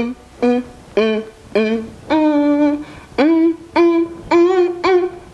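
A woman singing the tune of a children's song without words, in short separate notes with one longer held note about two seconds in.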